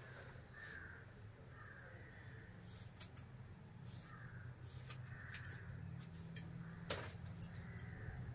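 Crows cawing over and over, short harsh calls about once a second, over a steady low hum, with a few sharp clicks in the middle.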